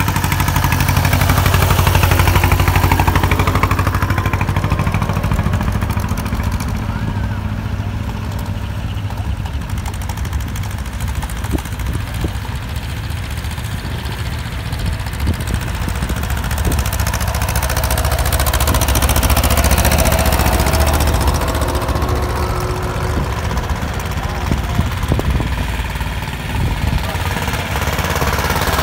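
Old tractor engines running as the tractors drive past one after another, with a fast, even exhaust beat. It grows louder about two seconds in and again around twenty seconds as tractors come close.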